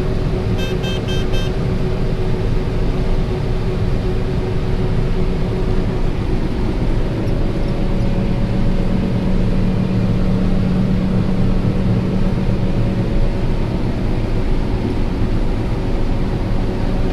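Combine harvester running steadily under load while harvesting corn, heard from inside the cab as a constant loud drone with a steady hum. About half a second in, an electronic alarm gives a quick run of about four short beeps.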